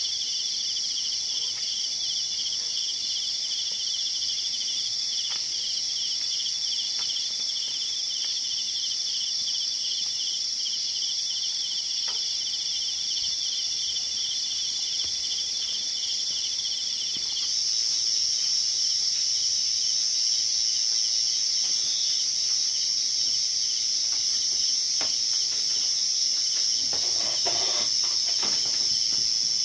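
Chorus of insects chirring steadily, one with a fast pulsing trill. A louder, higher chirring joins about halfway through. A few faint ticks and a brief soft noise come near the end.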